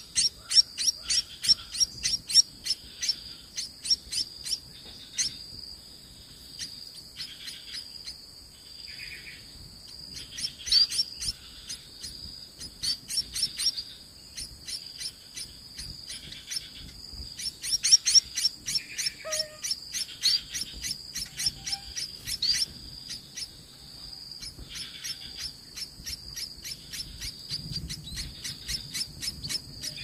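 Munia nestlings begging for food with short, high-pitched chirps at about four a second, coming in loud runs and fading between them. A steady high insect drone runs underneath.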